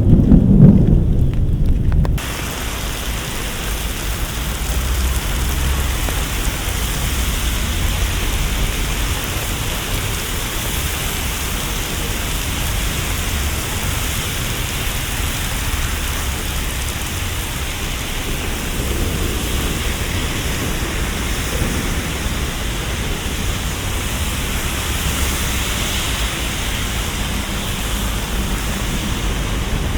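A loud low rumble that cuts off suddenly about two seconds in, followed by a steady, even hiss of rain or rushing water.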